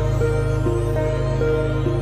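Instrumental background music: a held low bass note under a repeating pattern of notes that change about every half second.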